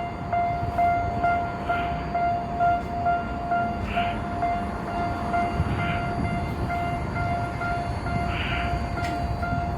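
Japanese level-crossing warning bell clanging about twice a second, over the low rumble of a Tokyo Metro Ginza Line train running slowly over the crossing as it leaves the depot.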